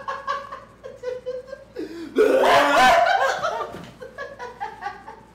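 Several young men laughing, with one much louder burst of laughter about two seconds in that lasts around a second.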